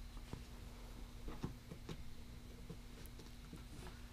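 Faint, scattered light clicks and taps of the plastic air box and the factory paper air filter being handled and lifted out, over a steady faint hum.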